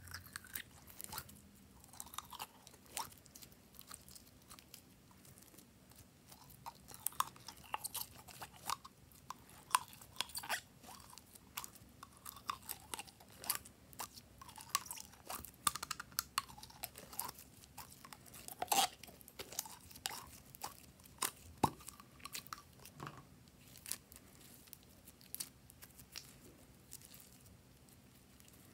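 A thin plastic bottle being squeezed and crinkled as glossy blue glitter slime is worked out of it, with sticky clicks and squelches as the slime is pulled and stretched between fingers. The clicks and crackles come irregularly, in clusters.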